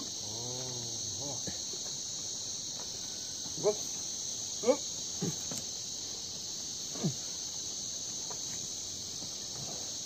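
Steady high-pitched drone of insects. Over it, one drawn-out call rises and falls in pitch about half a second in, followed by four short, sharp calls between about three and a half and seven seconds in.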